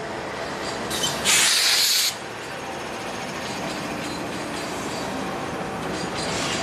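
Norfolk Southern freight train's trailing GE diesel locomotives, an AC44C6M and an ET44AC, passing close by with a steady rumble of engines and wheels on rail. About a second in, a loud hiss of air lasting under a second cuts in sharply and stops suddenly.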